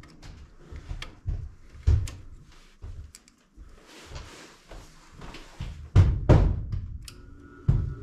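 Handling knocks and clunks against a furnace's sheet-metal cabinet as test leads and a fuse are worked at the control board, with two loud thumps about six seconds in and another near the end. A steady hum sets in about seven seconds in.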